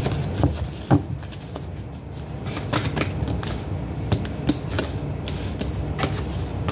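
A deck of tarot cards being shuffled by hand: an irregular run of quick card clicks and flicks, the sharpest about a second in, over a steady low hum.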